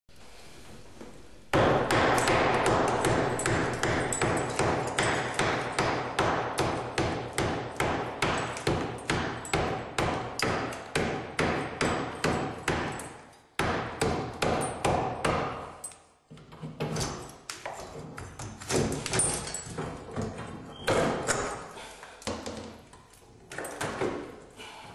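Repeated hammer blows, about three a second for some twelve seconds, then stopping and going on as slower, uneven strikes.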